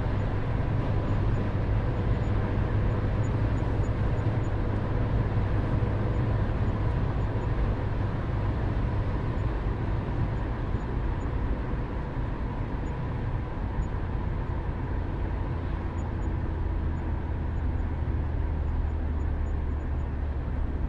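Interior noise of a car in motion, heard from inside the cabin: a steady low rumble with an even hiss over it, unchanging throughout.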